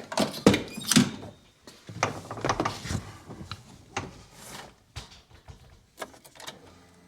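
Irregular clunks, knocks and clicks from handling the pickup truck, such as a door opening and shutting, with the loudest knocks in the first second and more until about six and a half seconds in.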